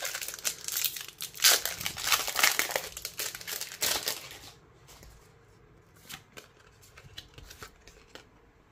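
A foil Pokémon booster pack wrapper being torn open and crinkled for about four and a half seconds, then quieter handling of the cards with a few soft clicks.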